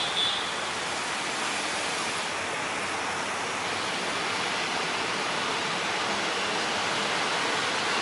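Steady rushing noise of passenger train coaches rolling past on the rails.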